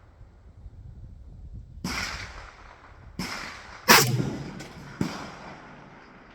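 Several sharp rifle shots with echoing tails. The loudest, about four seconds in, is a PSL semi-automatic rifle firing a 7.62×54R round, and weaker cracks come about two and three seconds in and again near five seconds.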